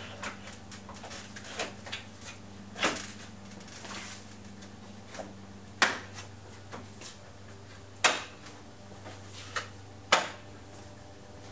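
Plastic grille sections of a 2005 Chevrolet Silverado being pushed into their retaining clips: a string of sharp plastic clicks and snaps, the loudest about three, six, eight and ten seconds in. A steady low hum runs underneath.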